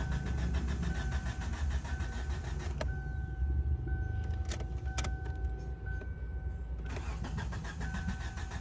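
Starter motor cranking the 2007 Kia Sportage's 2.0-litre four-cylinder engine steadily without it firing: a crank-no-start fault.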